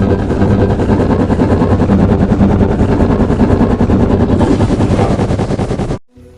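Loud, harsh rattling noise with a fast pulse, from film audio heavily distorted by remix effects. It cuts off suddenly near the end.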